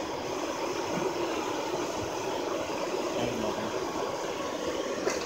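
Hair dryer forcing air through a steel pipe into a charcoal-fired bucket furnace: a steady rushing hum of blower and fire, with one short click near the end.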